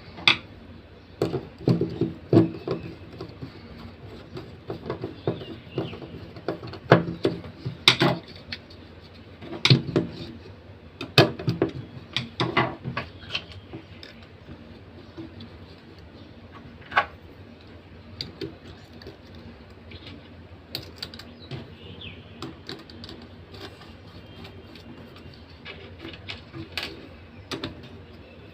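Irregular clicks and knocks of small plastic and metal parts being handled as an opened hair trimmer is worked on by hand. The clatter is busiest in the first half and thins out later, with one lone sharp click in the middle.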